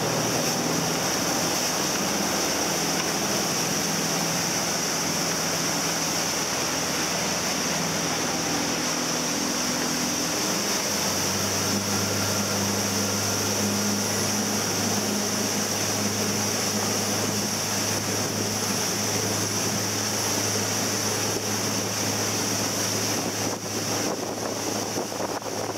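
Motorboat running under way: a steady engine hum under the rush of wind and the churning wake, its note changing about eleven seconds in.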